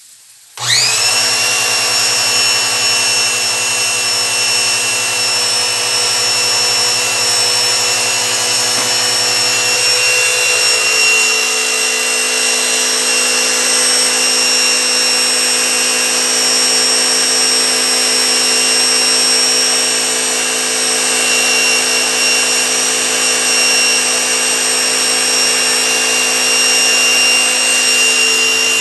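Electric pressure washer switched on about half a second in, its motor and pump then running steadily with a high whine. Its pressure-valve cover is cracked, so water and pressure escape and the washer loses pressure.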